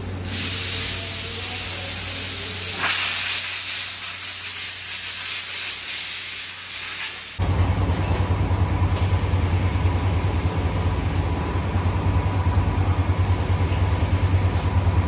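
A loud, steady hiss for about seven seconds, which stops abruptly and gives way to a low, throbbing mechanical hum.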